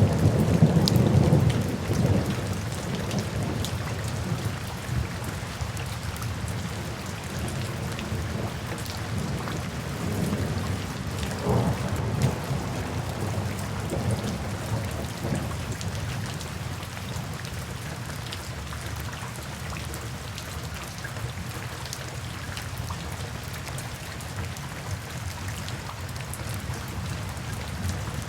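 Steady rain falling, with a low rolling rumble of thunder loudest in the first couple of seconds and another about twelve seconds in, then rain alone.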